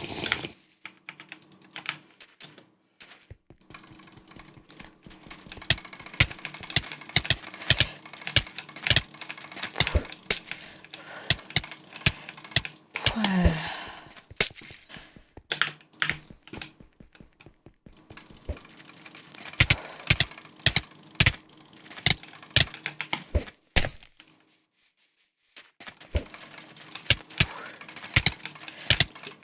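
Computer keyboard keys and mouse buttons clicking in quick, irregular runs, with a couple of short pauses.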